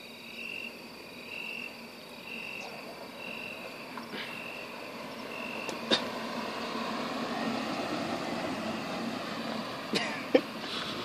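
A frog calling in short, evenly spaced high notes about once a second, then a Kia Cerato driving past, its engine and tyre noise rising from about six seconds in. Two sharp clicks near the end.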